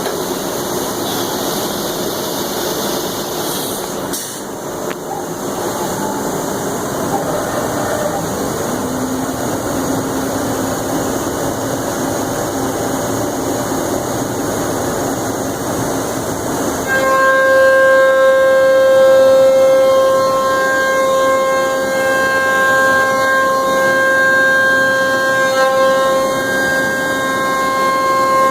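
CNC router milling plywood: a steady, noisy whir of the cutting, joined suddenly about two-thirds of the way in by a loud, steady whine of several tones that holds to the end.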